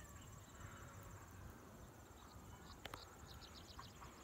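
Faint field ambience: insects giving a steady, rapid high-pitched trill, with a short run of quick chirps about three seconds in.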